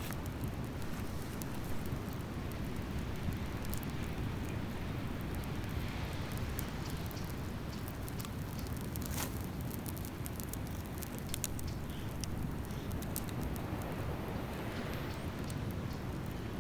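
Wood campfire crackling with scattered sharp pops, over a steady low rumble and wash of surf breaking on a beach.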